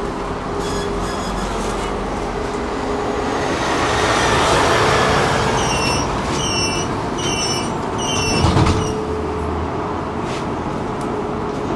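Tram running along the track, heard from inside the passenger cabin: a steady motor hum over rolling rumble that swells about four seconds in. Midway come four short, high-pitched tones about half a second apart, and a low thump follows near the end.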